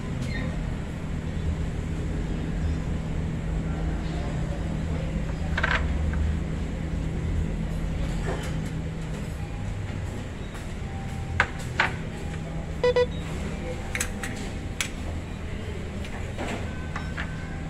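A metal serving spoon clinks against clay sambal pots and a small plastic dish as sambal is scooped out: a handful of short, sharp clinks, two of them close together past the middle. Under them runs a steady low hum.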